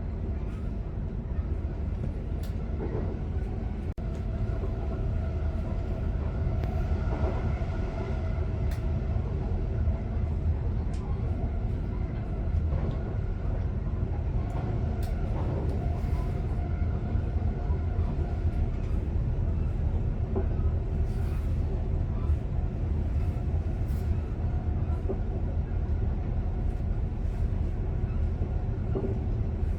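Swedish commuter electric train running along the line, heard from the driver's cab: a steady low rumble with faint steady tones above it and occasional light clicks.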